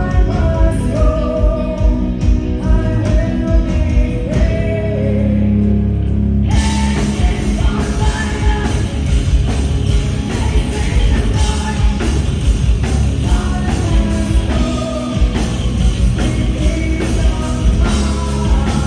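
Heavy metal band playing live, with distorted guitars, bass and drums under a singer's vocals. About six and a half seconds in, the sound turns fuller and brighter.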